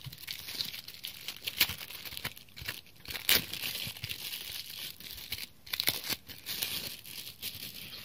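Thin clear plastic wrapping crinkling and tearing as it is handled and pulled off a phone case, in irregular crackles with a few sharper snaps.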